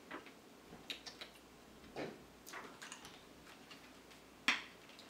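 Soft handling noises: a paper booklet rustling as it is held and turned, with a few small clicks and one sharper click near the end.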